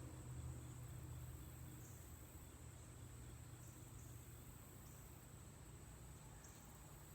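Near silence: a faint, steady, high-pitched hum of insects in the background, with a faint low rumble that fades over the first second or so.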